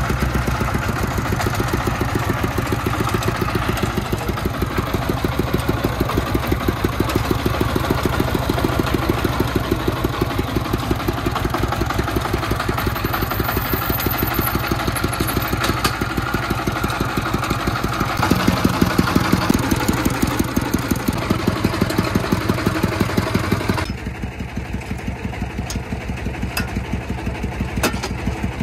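Homemade three-wheeled dump truck's single-cylinder diesel engine running steadily with an even, rapid beat, briefly louder about two-thirds of the way through, then dropping to a quieter idle. Near the end a few sharp clicks come as the tailgate is worked by hand.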